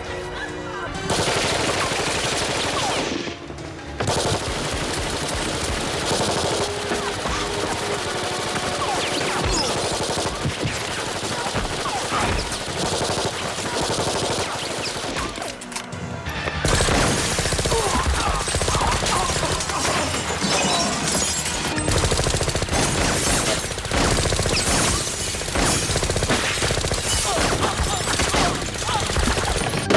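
Rapid bursts of MAC-10 submachine-gun fire from film shootout scenes, mixed with soundtrack music. The sound drops out briefly twice as the scenes change.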